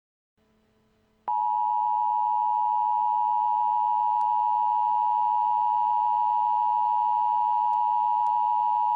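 Emergency Alert System two-tone attention signal (853 and 960 Hz played together) starting about a second in and sounding loud and steady, the alarm that precedes an emergency alert message. A faint low hum lies under it.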